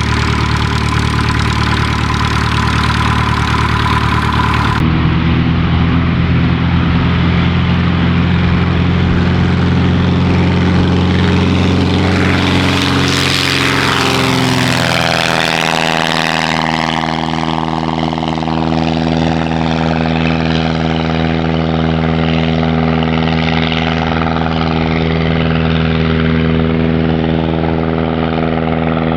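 Avid Flyer light aircraft's engine and propeller running steadily; around the middle the engine note glides and shifts, then holds a new steady pitch.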